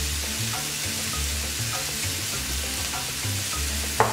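Onions, ginger and garlic sizzling in hot olive oil in a stainless steel frying pan, a steady hiss. Under it runs background music with a low repeating beat, and there is a short sharp knock near the end.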